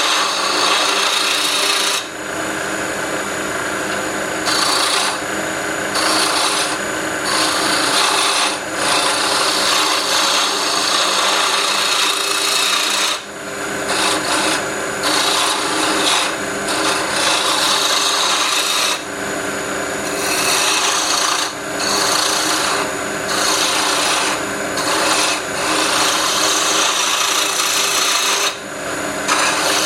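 Wood lathe running with a turning tool cutting a stabilized buckeye burl pen blank: a rough scraping cut over the steady hum of the lathe motor, easing off briefly several times as the tool is lifted and set again.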